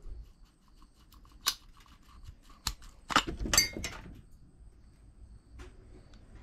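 Handling clatter from a steel hatchet head and a broken wooden handle: scattered sharp clicks and knocks, with a short burst of clinks about three seconds in.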